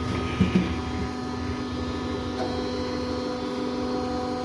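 Steady hum of running workshop machinery, an electric motor, with two short knocks about half a second in.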